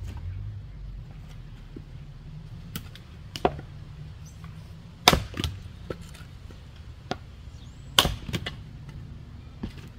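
A heavy splitting tool hitting a wet, stringy firewood round: three hard strikes about three and a half, five and eight seconds in, with quick smaller cracks right after the last two as the wood gives, and lighter knocks in between.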